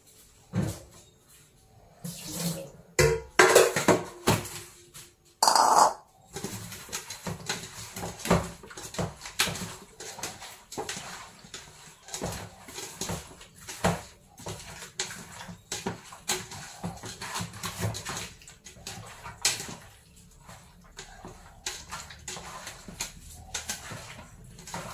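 Metal bowls and pots clanking in a steel sink, a few loud knocks in the first few seconds. After that, hands slosh and rub cut eel pieces in a pot of water, washing them for cooking, in a long run of small uneven splashes.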